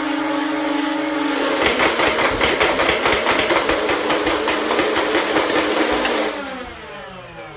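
Two Nerf Rival Nemesis blasters, one on a Rival battery pack and one on a 2S LiPo, with their flywheel motors running at speed. From about a second and a half in they fire balls in a rapid, continuous stream of shots. Near the end the firing stops and the motors wind down in a falling whine.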